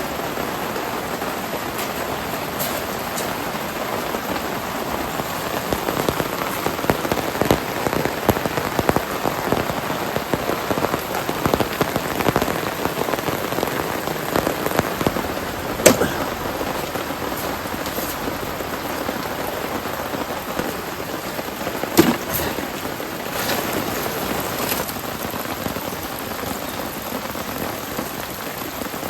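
Steady rain falling, with many heavy drops pattering close by. Two sharper, louder drop hits stand out, about halfway through and again a few seconds later.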